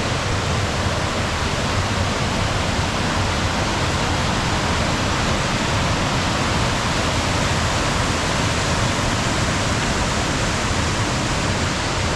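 Waterfall: heavy water crashing down steadily from a high rock face into the river below, a constant loud rush.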